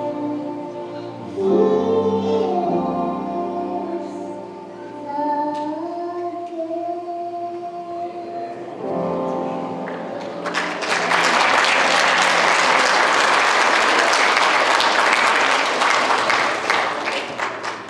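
Children's choir singing, holding a long note near the end of the song. The song ends about ten seconds in, and the audience breaks into applause.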